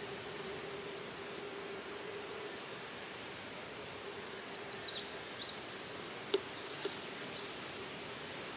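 Outdoor nature ambience: a steady hiss with a faint, constant hum, and a small bird chirping a quick run of high notes about halfway through and again a little later. A single sharp click comes between the two runs of chirps.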